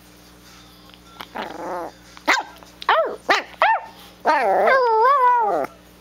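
Chiweenie (chihuahua–dachshund mix) puppy vocalizing while play-fighting. A short growl comes about a second and a half in, then four sharp high yips, then a long wavering bark-whine near the end: puppy 'back talk'.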